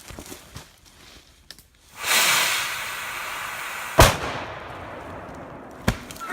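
A firework packed into a dead tree goes off: a loud rushing hiss starts suddenly and burns for about two seconds, then one sharp bang comes about four seconds in, and a smaller crack follows near the end. This is the blast that shears the dead tree off.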